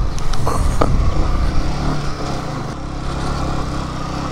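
Yamaha motorcycle engine running as the bike rides over a rough dirt and stone track, with a few short knocks in the first second and a steady engine note after that.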